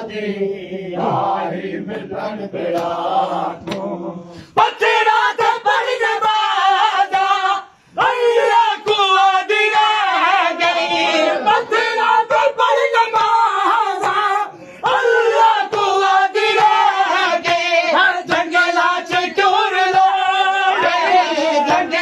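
A group of men chant a Punjabi noha (Shia lament) together, with rhythmic chest-slapping of standing matam beating time about twice a second. For the first few seconds the voices hold long notes; then the slapped beat and the chanted lines run on together, with two short breaks.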